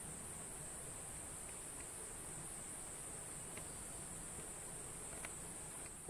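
Steady, high-pitched insect drone from the forest, a continuous faintly pulsing hum.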